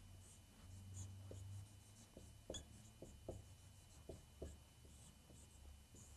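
Faint squeaks and taps of a marker writing and drawing an arrow on a whiteboard, in a few short strokes.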